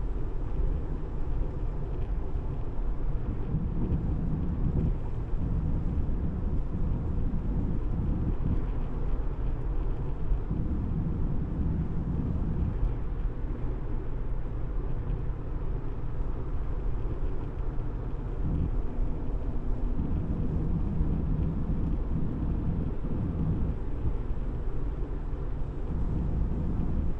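Tyre and wind noise of a Tesla driving along the road: a steady low rumble.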